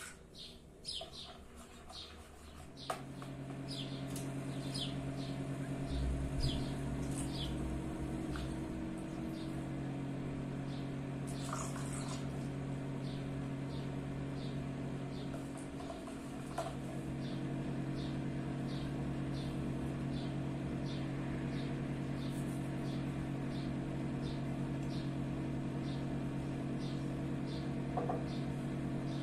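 A small bird chirping over and over, about two short high chirps a second. A steady low hum comes in about three seconds in and carries on underneath.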